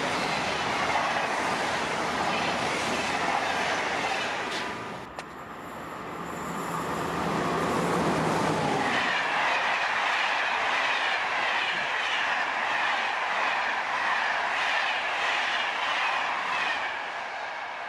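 Two coupled TER AGC multiple units passing through the station at speed, cut off about five seconds in. Then an SNCF BB 26000 electric locomotive hauling Corail coaches comes up with a steady low hum and passes, the coaches' wheels clattering rhythmically over the rail joints.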